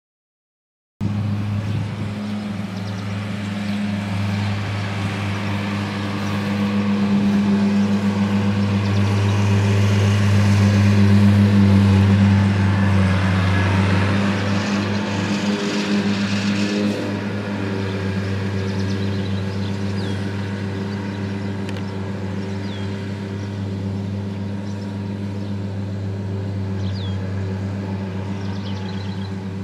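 An engine running steadily with a low, even hum that swells for a few seconds and then eases, with a few short high chirps near the end.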